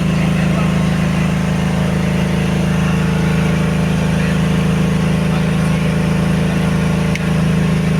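Compressed-air equipment, a 20 HP compressor with its air dryer, running with a steady, loud low hum. There is a brief click about seven seconds in.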